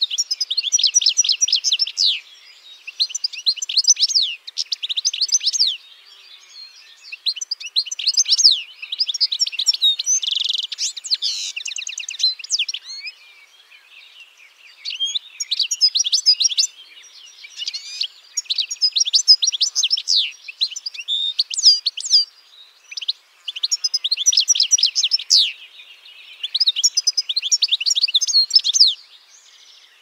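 European goldfinch singing: about eight bouts of rapid, high twittering, each a couple of seconds long, with short pauses between them.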